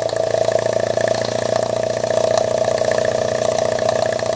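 Scratch-built double-acting uniflow-type model steam engine running fast on live steam. Its large central exhaust gives a rapid, even stream of beats over a steady tone.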